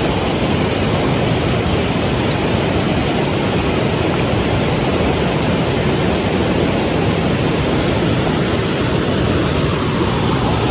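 Steady, loud rushing noise, even across low and high pitches and unchanging throughout, with no distinct knocks or motor whine standing out.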